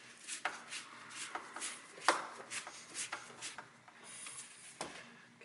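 Phillips screwdriver turning a screw by hand into a plastic car bumper: irregular clicks and short scraping rubs as the screw cuts into the plastic, fading toward the end.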